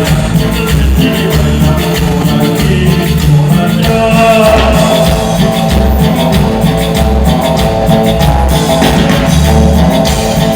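A live band playing amplified music through a PA during a sound check, with a pulsing bass line, sustained keyboard or guitar notes and a steady drum beat.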